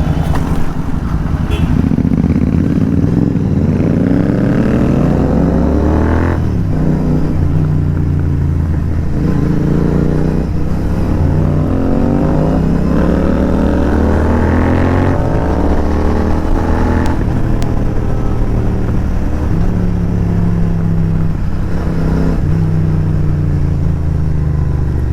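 Royal Enfield 650 parallel-twin motorcycle on an aftermarket exhaust accelerating through the gears: the engine note rises and drops at each of four upshifts, with short bursts of noise at the shifts, then holds steadier.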